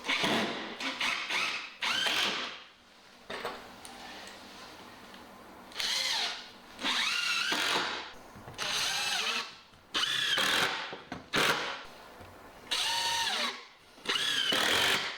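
Makita DTD152z cordless impact driver driving screws in about ten short bursts, its motor whine rising and falling in pitch with each screw.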